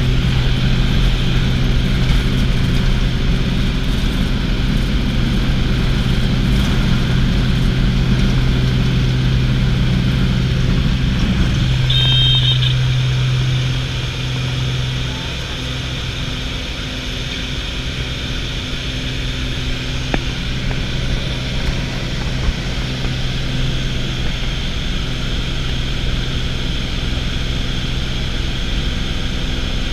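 Light high-wing propeller plane's engine and propeller running steadily, heard from inside the cabin through the takeoff roll and into the climb; the engine note changes about 12 to 15 seconds in. A short high beep sounds about 12 seconds in.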